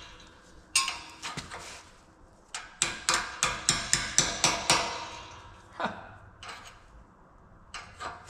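Sharp metal-on-metal taps that ring briefly: a hammer working a stubborn part of a Unimog 416 CV joint into place, a quick run of about nine strikes in the middle with a few scattered taps before and after.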